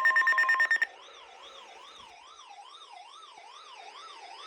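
Electronic alert tones: a loud, rapidly pulsing buzz-like tone cuts off about a second in, and a quieter warbling siren-like tone follows, sweeping up and down about two or three times a second.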